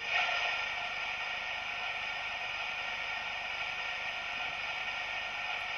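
Sound decoder of a Märklin 55077 gauge-1 class 78 steam locomotive model playing its 'taking on sand' effect through the model's loudspeaker: a steady rushing hiss of sand running into the sand dome.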